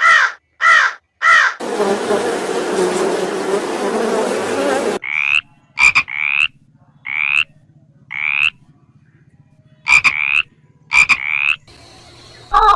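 A run of animal calls: three short calls, then a dense chorus lasting about three seconds, then a series of short rising calls, about eight of them.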